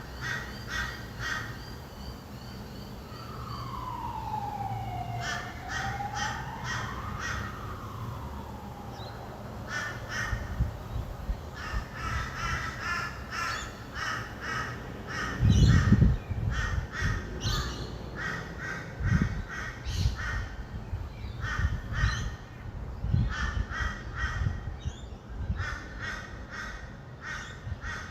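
A flock of rainbow lorikeets screeching in quick runs of short, harsh calls over a low traffic rumble. A single wail falls and then rises again a few seconds in. A low thump about halfway through is the loudest sound.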